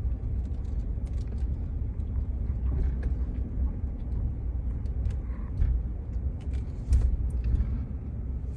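Car driving slowly, heard from inside the cabin: a steady low road and engine rumble with scattered light clicks and knocks.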